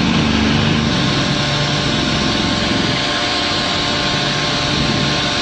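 Heavy machinery's diesel engine running steadily, with a low hum that wavers in pitch for the first few seconds.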